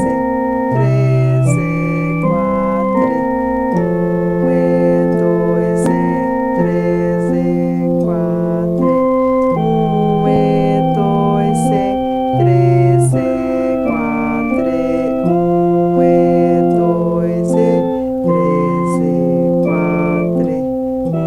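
Electronic keyboard playing a simple beginner's lesson piece in F major and four-four time: a melody over held left-hand notes, each note sustained evenly like an organ.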